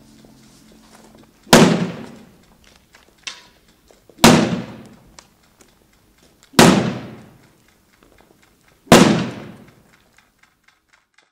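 A stick struck hard at a slow, even beat: four loud sharp cracks about two and a half seconds apart, each ringing out for about a second. Faint clicks of footsteps fall between them.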